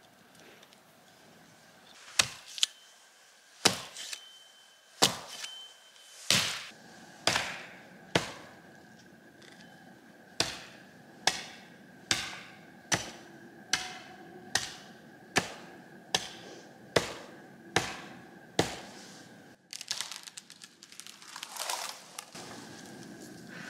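An axe chopping wood: sharp strikes, irregular at first, then settling into a steady rhythm of about one blow every 0.8 s from about ten seconds in. Near the end the blows stop and give way to a few seconds of rustling and scraping.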